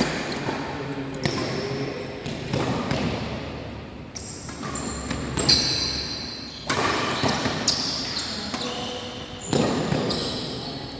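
Badminton rally: rackets striking a shuttlecock in sharp cracks a second or two apart, with short high squeaks between hits and players' voices, echoing in a sports hall.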